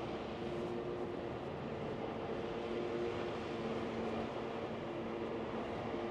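Steady city street traffic noise with a low hum that shifts in pitch now and then.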